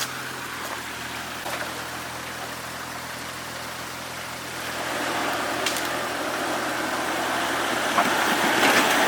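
Off-road vehicle running, with a rushing noise that swells from about halfway through and is loudest near the end.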